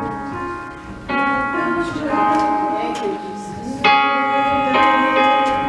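Church keyboard playing held, organ-like chords, moving to a new chord every second or so.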